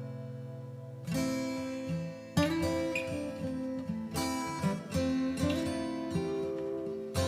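Background music: a plucked acoustic guitar melody, its notes changing every second or so.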